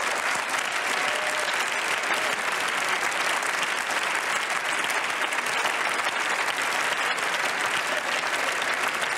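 Sustained applause from a large parliamentary chamber full of members: many hands clapping in a dense, steady wash at the close of a speech.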